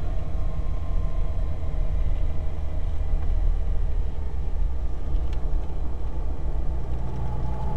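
Ferrari 308 GTB's mid-mounted V8 running steadily at speed, heard from inside the cabin under a heavy, even low rumble of road and wind noise.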